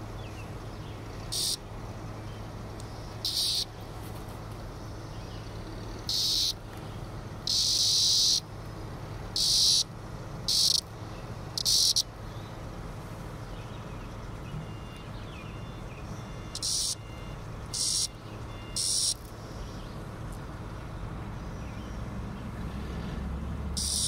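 Periodical cicada giving short, loud, buzzing squawks each time a finger touches its back, about eleven buzzes in irregular bunches with a pause midway: its disturbance call.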